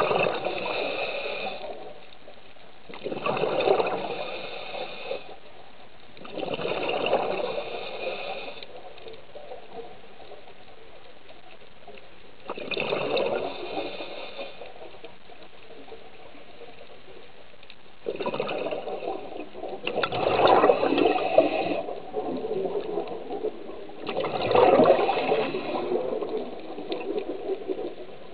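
Scuba diver's exhaled bubbles from the regulator, heard underwater: about seven bursts of bubbling, each a second or two long, coming every few seconds with a longer pause in the middle, over a faint steady hiss.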